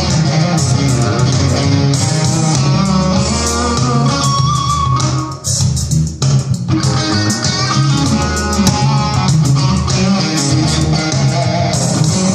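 Electric guitar playing an improvised lead over an E-flat minor backing track with bass guitar. The music dips briefly about halfway through.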